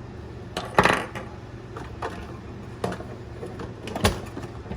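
A few sharp metallic clicks and clinks of a small metal flashlight and its parts being handled, the loudest about a second in and others near two, three and four seconds.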